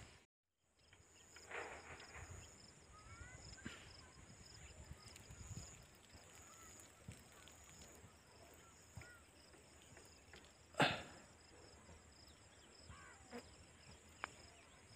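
Open-field ambience: a steady high-pitched insect chorus, with a few short bird chirps. A brief loud noise about eleven seconds in is the loudest moment.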